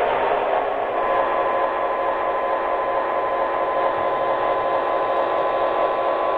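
Lionel O gauge GP-9 model locomotive's onboard sound system playing a diesel engine sound through its small speaker, thin and tinny, with a steady tone joining about a second in.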